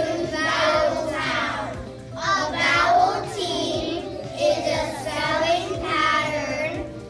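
Young children singing.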